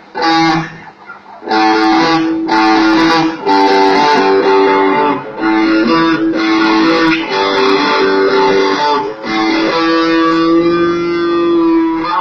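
Electric guitar playing chords in short phrases with brief gaps, then one chord held for the last couple of seconds before it stops.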